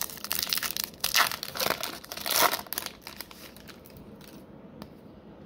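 Foil wrapper of a Topps Finest baseball card pack crinkling and tearing as it is opened by hand. There are several loud crackling bursts in the first three seconds, then the crinkling dies away.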